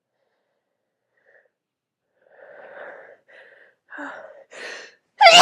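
A woman's sneeze building up: a few short, gasping inhales that grow louder, then a loud sneeze bursting out right at the end.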